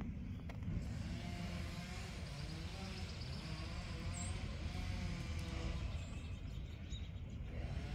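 An engine running over a low rumble, its pitch wavering up and down as the revs change, most likely machinery at the tree cutting.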